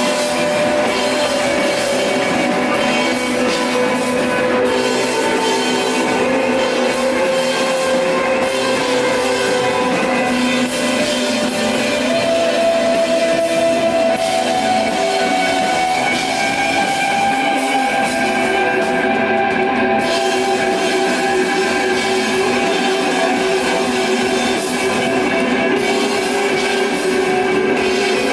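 A live rock band playing an instrumental passage: electric guitar holds long notes that change every few seconds, over drums and cymbals.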